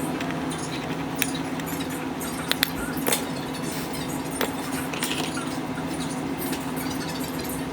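Light clicks and taps of small metal repair tools against a smartphone's glass and metal body, a few at a time, over a steady hum.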